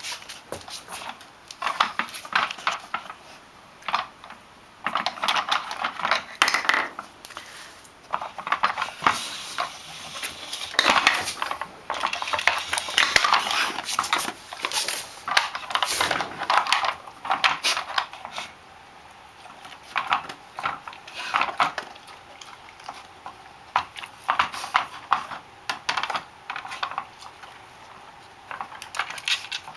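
Nina Ottosson Dog Tornado puzzle toy clattering and clicking in bursts as an Akita noses and paws at it, working the white locking bones loose to get at the treats. Short quieter pauses come between the bursts.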